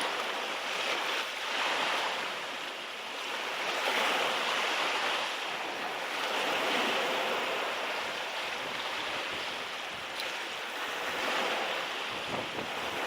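Sea waves washing in a heavy swell, rising and falling every few seconds, with strong wind buffeting the microphone.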